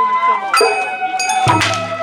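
Sawara bayashi festival music: a bamboo flute holding long notes while a drum and a small metal gong strike, about half a second in and again about a second and a half in, the gong ringing on.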